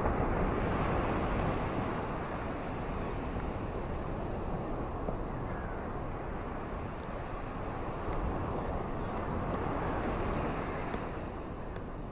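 Rain with wind: a steady rushing noise that swells near the start and again about eight seconds in, then eases near the end.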